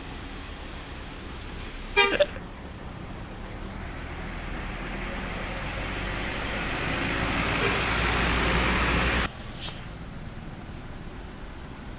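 A bus horn gives a short double toot about two seconds in. Then a bus's engine and road noise grow steadily louder for several seconds and cut off suddenly.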